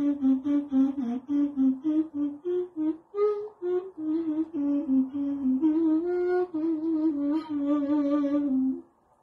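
Persian ney (end-blown reed flute) playing a breathy melody of quick, short repeated notes in its low register, rising briefly about three seconds in, then stopping near the end at the close of a phrase.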